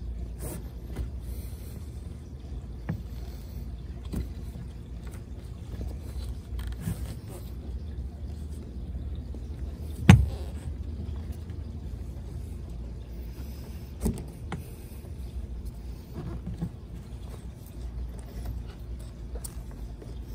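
Hands working line through a catamaran's trampoline net: scattered light rustles and knocks over a steady low rumble, with one sharp knock about halfway and a smaller one a few seconds later.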